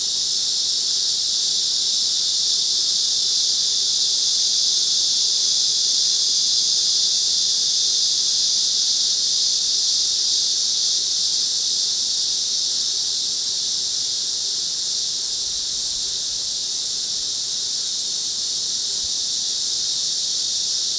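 Loud, steady high-pitched chorus of insects, continuous and unbroken.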